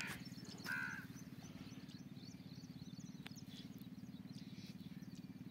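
A faint, steady low drone with a fast, even pulse, like an engine running at low speed. A brief higher call comes under a second in, with scattered faint chirps over the drone.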